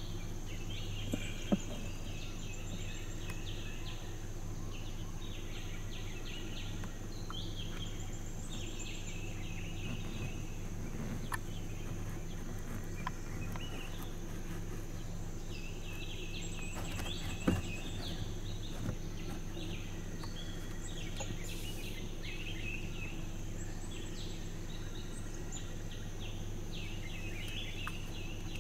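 Forest ambience: birds calling in short chirpy bursts every few seconds over a steady high insect drone and a low steady hum, with a couple of sharp clicks.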